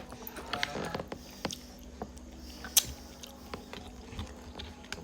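Close-up eating sounds: chewing and biting, with scattered sharp clicks and wet smacks.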